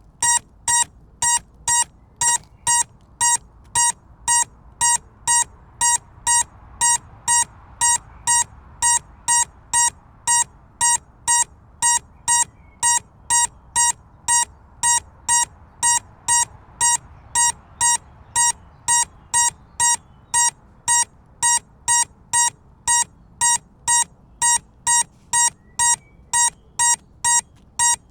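An electronic beeper sounding short, shrill beeps of one pitch, evenly repeated about twice a second without a break.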